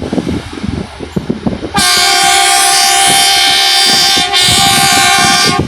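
Horn of a railway track maintenance machine sounding two blasts, a long one and then a shorter one, after a couple of seconds of machine rumble and clatter.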